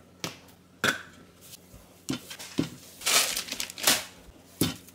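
Groceries being taken out and set down: a handful of sharp knocks, with plastic packaging crinkling for about a second, about three seconds in.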